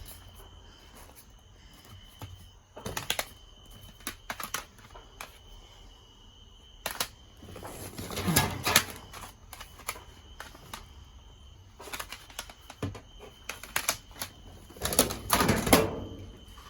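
Hard objects clattering and rustling as a dumpster's contents are rummaged through by hand: scattered clicks and knocks, with bursts of clatter about three seconds in, around eight seconds and again near the end.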